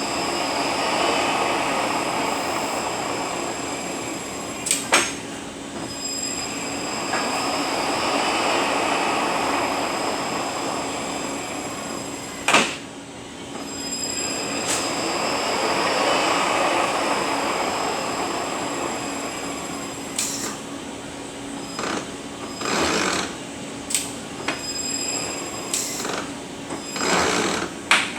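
Rebuilt Eaton Fuller RTLO-18918B 18-speed truck transmission running on a test dyno. A steady whine sits under a rushing noise that swells and fades about every seven seconds, with occasional sharp clunks that come more often near the end.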